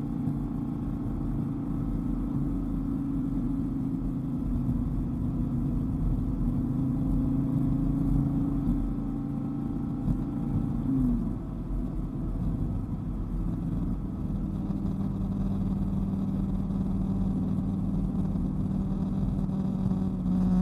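Dodge Viper GTS's V10 engine running steadily on the road, with tyre and road noise. About eleven seconds in, the engine note changes, settling lower and then slowly climbing.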